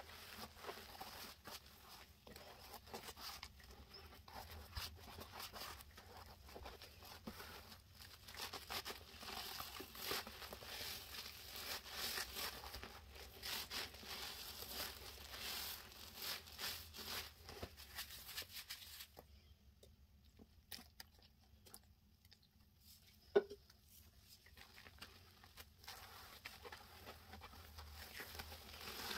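Soapy sponges squeezed and rubbed in a thick dish soap and baking soda lather: a dense run of small crackles, quieter for a few seconds about two-thirds through, where one sharp click stands out.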